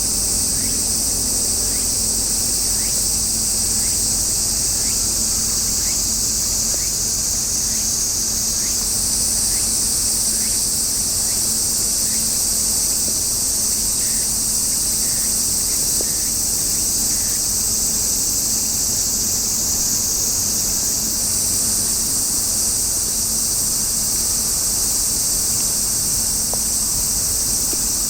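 A steady, high-pitched insect chorus that shifts a little in pitch a couple of times, over a faint low hum.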